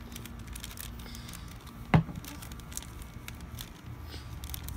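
Gift-wrapping paper crinkling and rustling in a toddler's hands as he picks at it to open a present. One brief sharp sound about two seconds in.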